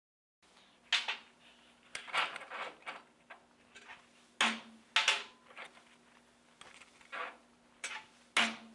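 A hammer striking a welded steel piece, about eight sharp, irregularly spaced blows, some leaving a short ring.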